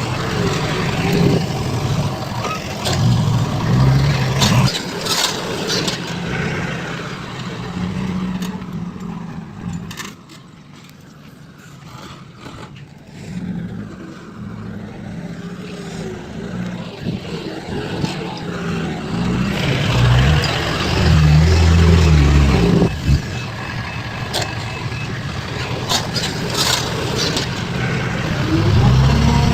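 Diesel engines of heavy earthmoving machinery running, their pitch stepping up and down with load, dropping quieter for a few seconds about a third of the way in.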